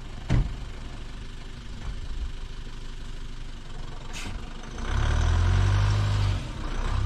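Foton light box truck's engine running at low speed as the truck creeps forward, growing louder for a second or so about five seconds in.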